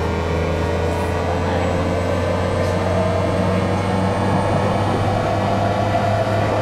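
Hitachi two-level IGBT VVVF inverter of a Tokyu 5050 series train, picked up electromagnetically and mixed with the cabin's running noise: a steady tone that rises slowly in pitch as the train gains speed, over a low hum and rumble.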